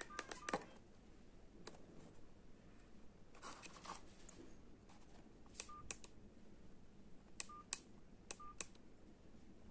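Old Nokia mobile phone's keypad being pressed: clicks in twos and threes, several with a short, high beep, at about 0.5 s, 6 s, 7.5 s and 8.5 s.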